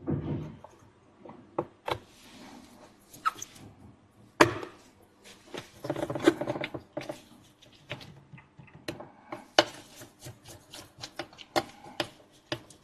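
Scattered light clicks and taps with soft rubbing: small tools and parts being handled while an opened hard drive is cleaned by hand.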